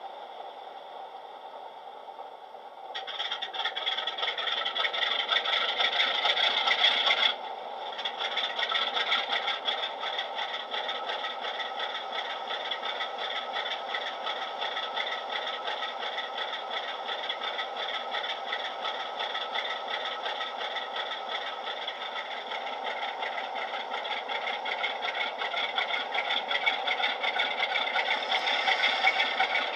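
Model Class 47 diesel engine sound from a DCC sound decoder, played through a small tablet speaker in a Bachmann model locomotive. It runs as a diesel idle, steps up to a louder, fuller note about three seconds in, dips briefly a few seconds later, then runs on steadily, growing a little louder near the end.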